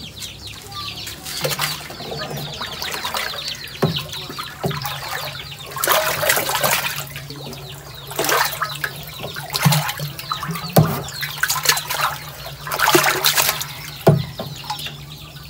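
Water splashing in irregular bursts in a container as live pond frogs are grabbed by hand and thrash, with a few sharp knocks in between. A steady low hum runs underneath.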